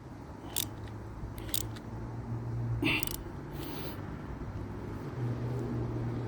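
A few light metallic clicks and scrapes as a wrench and nut are worked to tighten a bicycle brake-pad mounting bolt, the loudest click about three seconds in, over a low steady hum.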